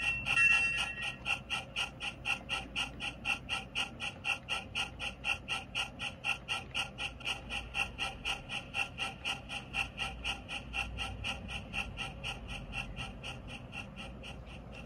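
Model train running along its track: a steady rhythmic clicking, about four to five beats a second, fading slowly as the train pulls away.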